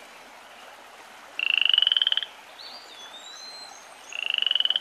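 A frog calling twice, each call a rapid, pulsing trill just under a second long that rises slightly in pitch.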